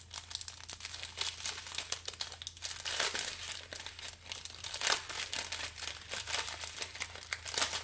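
Clear plastic bags of diamond-painting drills crinkling and crackling as they are handled, in dense, irregular crackles.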